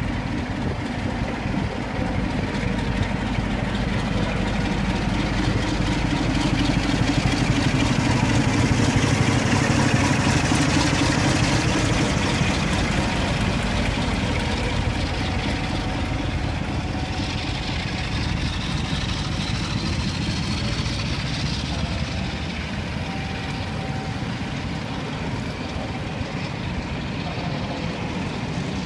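Class 47 diesel locomotive's Sulzer twelve-cylinder engine running as it leads a passenger train past, loudest about ten seconds in as it draws alongside. The rumble and clatter of the coaches rolling over the rails follow.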